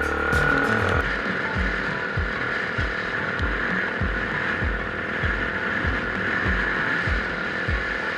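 Single-cylinder enduro motorcycle riding: a steady rush of engine and wind noise, with irregular low thumps two to three times a second.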